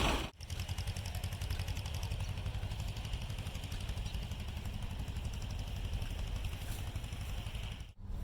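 An engine running steadily with a low rumble. It cuts in just after the start and cuts off sharply near the end.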